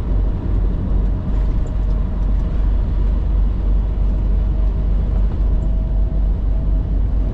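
Semi truck's diesel engine and road noise heard from inside the cab, a steady deep rumble while cruising at a constant speed, with a faint steady whine over it.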